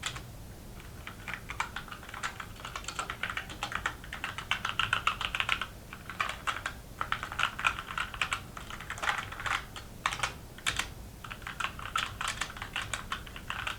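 Typing on a modded Dierya mechanical keyboard with Cherry MX Black linear switches: quick runs of keystrokes broken by short pauses.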